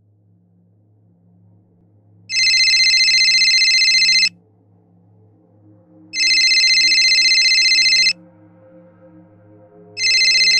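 Telephone ringing with a warbling electronic ring: two rings of about two seconds each, about two seconds apart, with a third starting near the end. Soft music plays faintly underneath.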